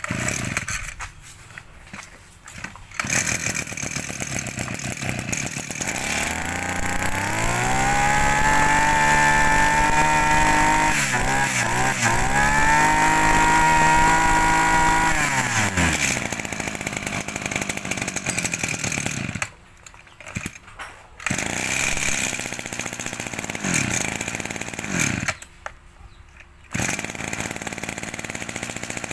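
Kioritz 250 brush cutter's small 25cc two-stroke engine running, revved up for several seconds with a brief dip, then settling back to idle. The sound drops away briefly twice near the end.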